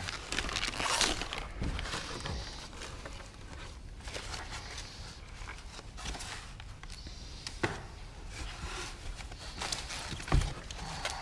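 Handling noises and scattered knocks as parts and packaging are moved about, with a louder knock near the end.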